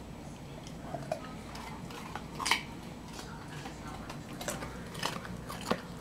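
A German Shepherd crunching a piece of raw carrot: a few sharp, crackly crunches, the loudest about two and a half seconds in.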